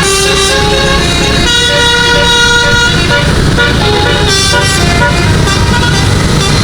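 A bus's 12-note Basuri telolet musical air horn playing a melody of held notes that step from pitch to pitch, over a low rumble.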